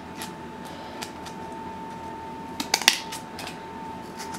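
Scissors snipping into thin cardboard: a few short, sharp cuts, the loudest pair about three seconds in.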